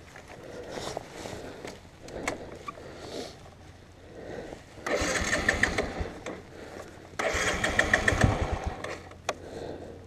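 Bajaj Boxer BM 150's single-cylinder four-stroke engine being started twice, about five and about seven seconds in; each attempt runs a second or so with a fast pulsing beat and then dies away.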